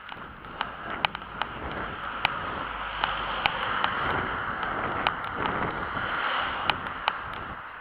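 Rhythmic footfall thuds of a runner on asphalt, about two to three a second, over wind rumbling on the microphone. A car's tyre and engine noise swells and fades as a small van drives past, loudest about five to six seconds in.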